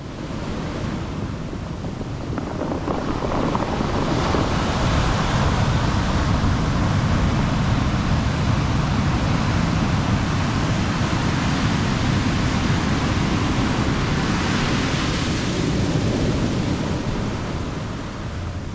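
Ocean surf breaking on the beach, a continuous wash of waves that swells louder a few seconds in and again near the end, with wind rumbling on the microphone.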